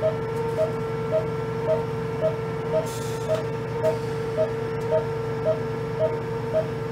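Patient monitor beeping once per pulse of the anesthetized dog, short even beeps at about two a second, over a steady electronic tone and hum.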